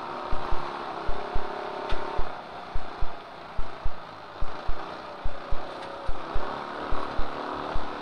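Trophy kart engine running under way, heard as a muffled drone through the driver's helmet microphone, with regular low thumps about twice a second.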